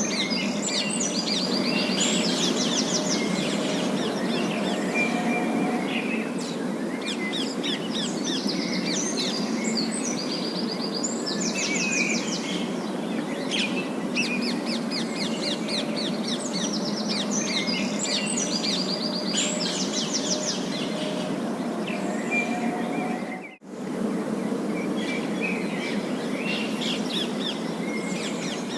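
Parakeets chattering and chirping, with quick warbling trills coming in repeated bursts over a steady low background noise. The sound drops out briefly about two-thirds of the way through.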